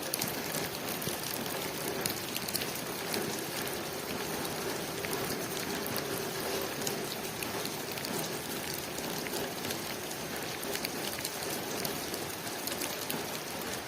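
Steady rain falling on a window pane, an even hiss dotted with many small sharp drop ticks.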